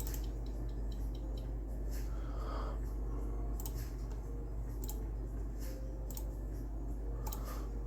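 Steady low electrical hum from bench equipment, with a few faint scattered clicks over it.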